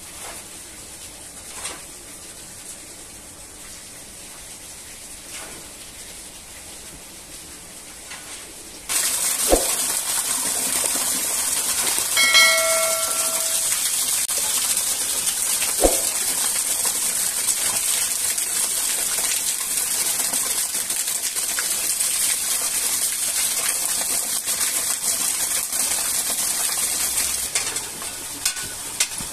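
A loud, steady hissing noise starts abruptly about nine seconds in and eases off shortly before the end. About a second after it starts there is a sharp click, a brief whistle-like tone comes a few seconds later, and a second click follows. Before the hiss there is only faint background noise.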